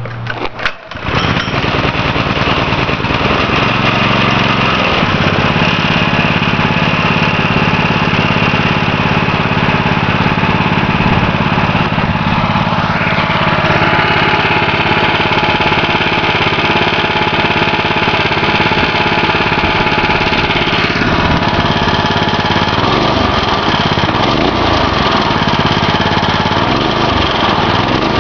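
PowerFist 6.5 HP 196cc single-cylinder four-stroke Honda-clone engine on a go-kart, running steadily just after a cold start, with a brief dip in the sound just under a second in. Its note shifts a couple of times and its speed wavers near the end.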